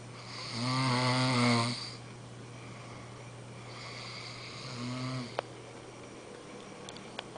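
A man snoring in his sleep: one loud, rattling snore lasting about a second and a half, then a quieter second snore about four seconds in.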